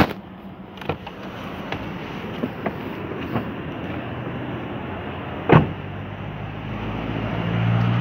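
Car door clicks as it is opened, then steady noise of wind on the microphone and street sound outdoors. A single sharp bang comes about five and a half seconds in as the car door is shut, and a low vehicle engine hum builds near the end.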